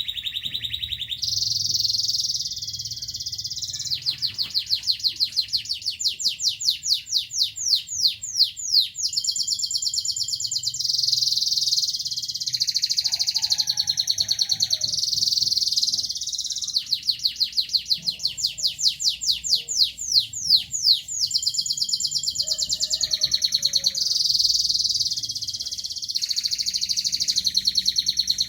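Local canary singing one long unbroken song of high warbled phrases and trills. Twice, about four seconds in and again past the middle, it breaks into a long roll of rapidly repeated notes that speeds up.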